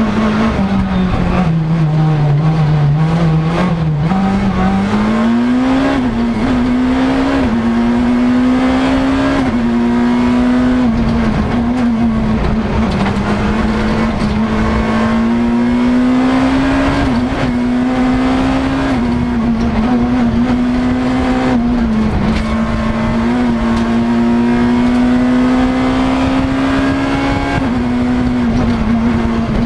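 Škoda Fabia S2000 rally car's four-cylinder engine heard from inside the cockpit under hard acceleration. Its pitch sinks briefly as the car slows about two seconds in, then climbs again and again, dropping sharply at each quick sequential upshift as it works up through the gears.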